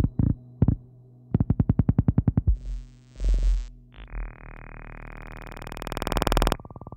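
Electroacoustic synthesizer music made of glitchy electronic sounds: a couple of short blips, a fast train of clicking pulses, a low booming burst, then a buzzing tone that swells and cuts off suddenly near the end.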